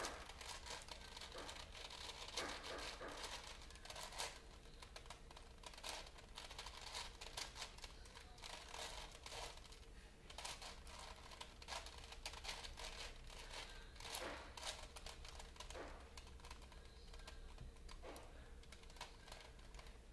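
Plastic clicking and clacking of a many-layered Rubik's-type puzzle cube being turned by hand, faint, in quick irregular runs with short pauses.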